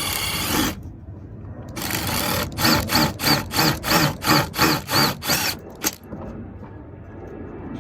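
Milwaukee Fuel cordless impact driver driving a screw through sheet-metal band strap into spiral duct: a steady run, then a series of short trigger pulses, about three a second, each a whine that rises and falls.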